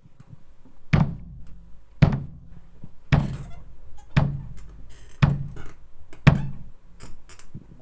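Kick drum struck with a foot pedal, six strokes about one a second, each with a short low ring, played heel down.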